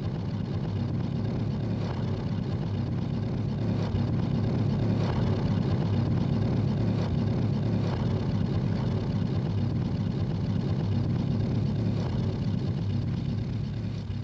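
Piston engines of an Arado Ar 232 propeller transport aircraft running as it taxis, a steady low drone that swells slightly over the first few seconds, then holds and ends abruptly.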